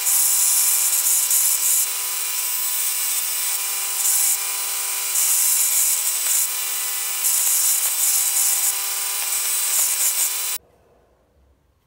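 Ryobi BDS-1010 belt sander running with a steady hum while a steel round scraper is ground on the belt: a hissing grind comes in five or so passes as the tool edge touches the abrasive, striking small sparks. The sound cuts off sharply near the end.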